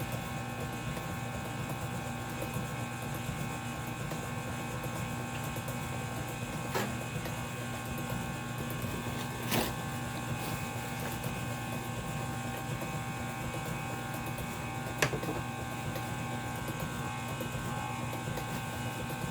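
Electric mixer motor running steadily as it beats pound cake batter, with three short sharp taps.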